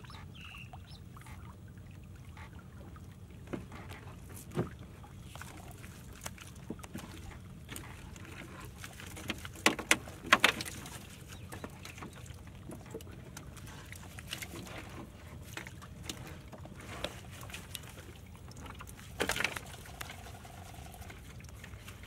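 Wet net trap being hauled into a small boat and emptied, water pattering and dripping off the mesh, with scattered sharp knocks and splats as small fish and crabs drop onto the hull. The loudest knocks come about halfway through and again near the end.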